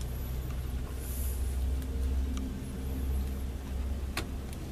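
A steady low rumble, with a couple of faint clicks as small screws are driven back into a laptop's cooling fan with a small Phillips screwdriver.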